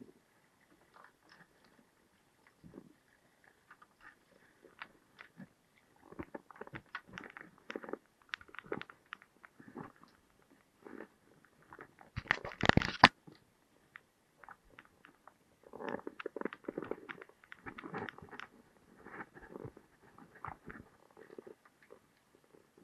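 Irregular crunching and clicking close to the microphone, like chewing, with one louder burst of about a second midway.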